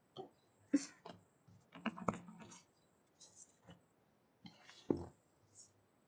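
Scattered faint clicks and knocks with brief, indistinct voice sounds, heard through an online meeting's microphone.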